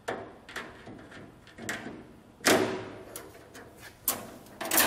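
Aluminum door panel being fitted onto an aluminum grass catcher: a series of metal clanks and rattles with a short ring, the loudest about halfway through and a few more knocks near the end.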